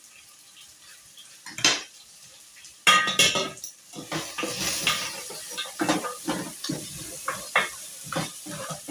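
A spoon clanks against a cooking pot, with one loud ringing clang about three seconds in, then scrapes round the pot in repeated strokes as beef and spring onions are stirred, with a sizzle underneath.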